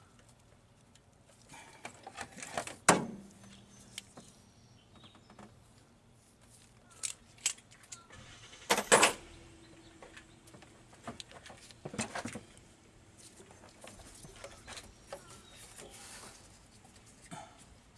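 Metal tools clinking and clattering, with two sharper metallic clanks about three and nine seconds in that each ring on briefly.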